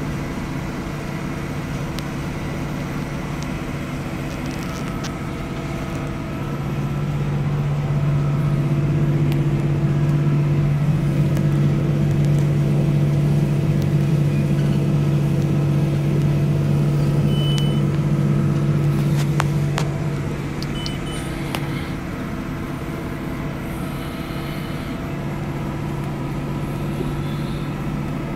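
Large tractor's diesel engine running steadily under load, heard from inside the cab while it pulls a Horsch Joker cultivator through stubble. The drone grows louder about six seconds in and eases back about twenty seconds in.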